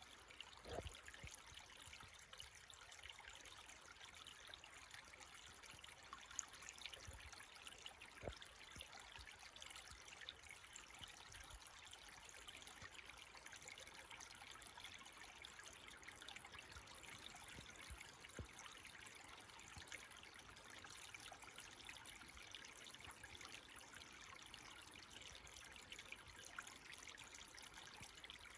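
Faint creek water trickling and burbling steadily, with a couple of soft low bumps about a second in and again near eight seconds.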